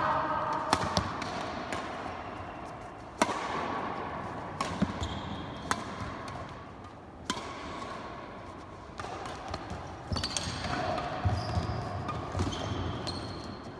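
Badminton rally: sharp racket strikes on the shuttlecock every second or two, mixed with short squeaks of shoes on the court, echoing in a large hall.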